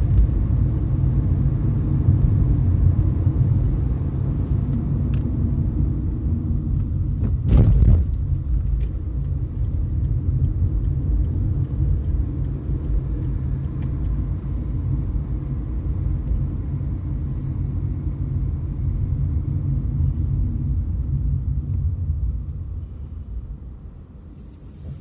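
Steady low road and engine rumble of a moving car, heard from inside the cabin, with one loud thump about seven seconds in. The rumble drops away near the end as the car slows to a stop.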